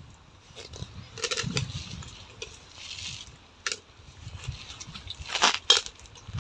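Scattered small clatters and scrapes of people eating from plastic plates and a hand working in a metal cooking pot, with one louder scrape and a sharp click near the end.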